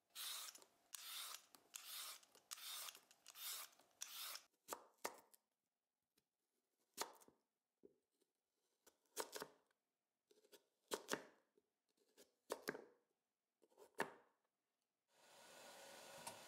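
Crinkle-cut knife chopping through a raw sweet potato onto a wooden cutting board, with five separate strikes about one and a half seconds apart, after a run of quick scraping strokes at the start. Near the end a steady hiss begins from the pot under a steamer basket.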